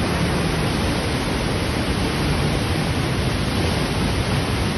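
Steady rush of floodwater pouring through a dam's open spillway gates and churning down the swollen river below: the dam releasing heavy flow after days of heavy rain.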